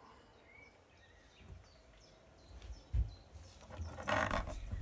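Mostly quiet room tone, then a low thump about three seconds in and a short rustle near the end as a yellow water hose with a push-fit fitting is handled on the worktop.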